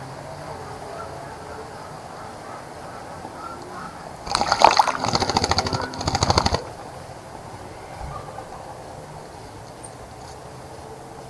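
A small bird bathing in a bird bath, beating its wings in the water in a quick fluttering splash that lasts about two seconds, with a brief pause before a last short flurry.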